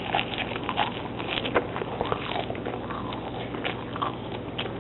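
A person chewing a mouthful of raw garden greens (kale, arugula, lettuce), crunchy, with irregular crisp crackles as the leaves break between the teeth.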